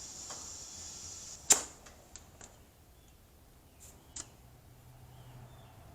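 Tire plug tools being handled at a tractor tire: a faint hiss, then one sharp click about a second and a half in, followed by a few lighter clicks and taps.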